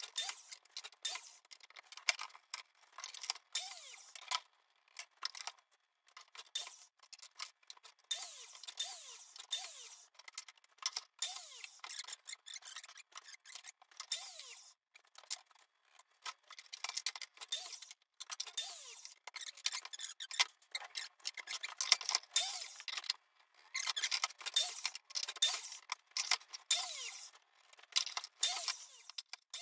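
Wooden trim pieces being handled and test-fitted against a panel: irregular clicks, small knocks and rubbing scrapes with a few short falling squeaks, busiest in two long stretches.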